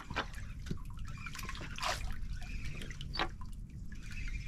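Water lapping and dripping against the hull of a small drifting outrigger fishing boat, a scatter of small splashes and drips over a low steady wash.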